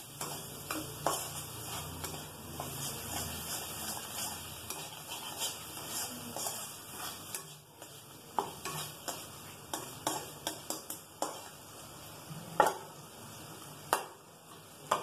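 A spatula stirring and scraping a thick spice paste in a hot kadai, knocking and clinking irregularly against the metal pan, over a faint sizzle. The paste is being fried down in oil with sugar mixed in.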